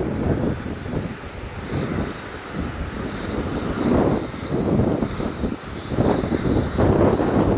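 Small unmanned aircraft in flight carrying full payload: a rushing propeller-and-motor noise that swells and fades, with a thin high whine that rises slowly in pitch.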